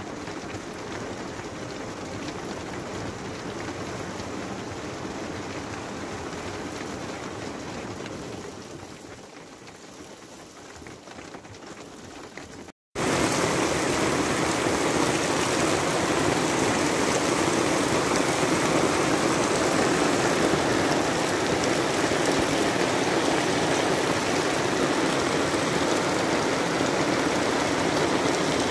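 Heavy rain pouring down steadily in a downpour, a dense hiss of water on asphalt and grass. About thirteen seconds in it cuts abruptly to a louder, heavier stretch of the same downpour.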